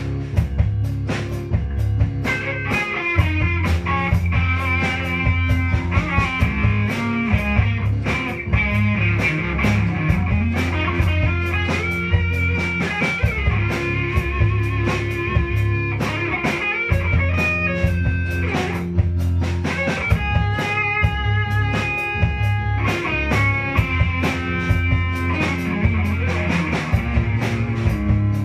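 Live rock band playing: electric guitars sustaining high notes over a bass line and a steady drum-kit beat.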